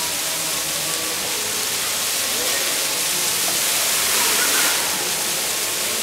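Fountain water jets rushing up and splashing back down onto the wet floor, a steady hissing rush that swells briefly a little past the middle.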